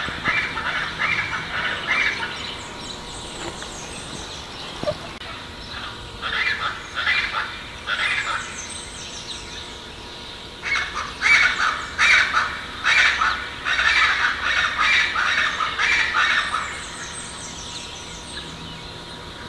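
Scaled chachalaca giving its harsh, repeated 'ara-cuã' call in three bouts: a short run at the start, another about six seconds in, and a longer run from about eleven to sixteen seconds.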